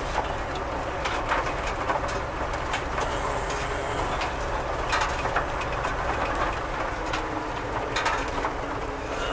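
Inside a moving car's cabin: the steady low rumble of engine and tyres while driving slowly downhill on a dirt drive, with a few light knocks.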